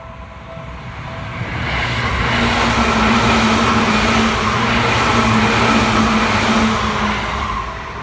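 Seibu Ikebukuro Line electric train passing over a level crossing: its running noise on the rails builds over the first two seconds, holds for about five, then fades. The crossing's warning bell rings at the start and again near the end, drowned out by the train in between.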